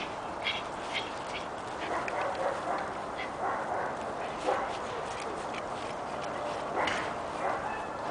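Giant Schnauzer puppy giving a few short, scattered dog vocalisations while playing with a tug toy, the clearest about halfway through and again a little before the end.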